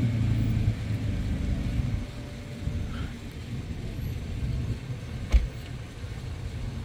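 Chevrolet S-10 Blazer's V6 engine running, steady for about the first two seconds and then a rougher, lower rumble. There is one sharp thump about five seconds in.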